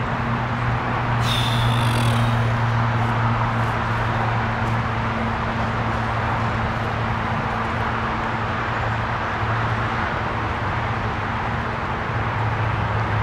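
Outdoor ambience: a steady low hum over an even wash of background noise. A brief, sharper high-pitched sound comes in about a second in and lasts roughly a second.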